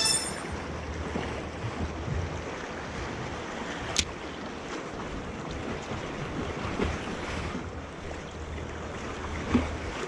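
Wind buffeting the microphone over the steady wash of sea waves against the rocky shore. A short high ring at the very start, a sharp click about four seconds in, and a thump near the end.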